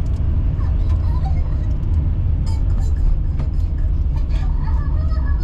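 Steady low rumble of a car driving on the road, engine and tyre noise without a break.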